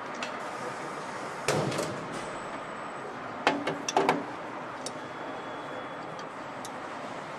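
Steady assembly-line background noise, with a knock about a second and a half in and a quick run of sharp metallic clanks of tools and engine parts around three and a half to four seconds in.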